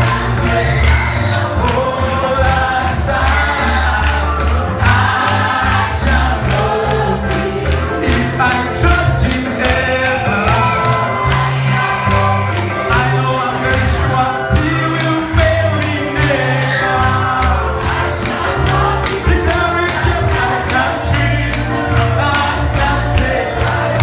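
Live gospel praise music: many voices singing together over an amplified band with a heavy, pulsing bass and a steady drum beat.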